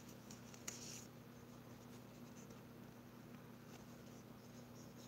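Near silence: a steady low electrical hum, with faint soft scrapes of trading cards being handled and slid.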